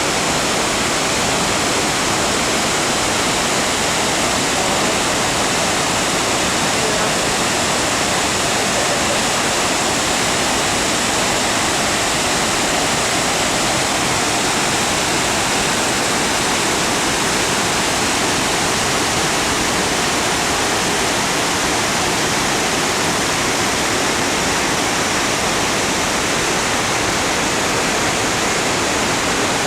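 Torc Waterfall: a cascade of water falling over rock, making a steady, loud rushing roar that stays even throughout.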